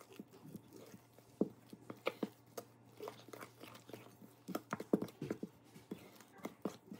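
White spatula stirring thick, wet flour batter in a stainless steel bowl, making an irregular run of short, soft clicks as the batter is worked.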